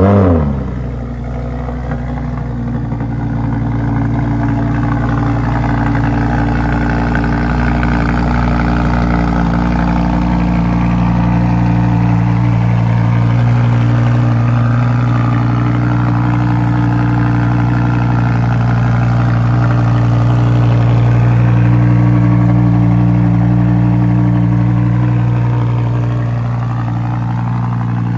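Lamborghini Huracán LP 610's naturally aspirated 5.2-litre V10 just after a cold start. The start-up flare dies down in the first second, then the engine holds a steady, loud fast idle, easing down a little about 26 seconds in.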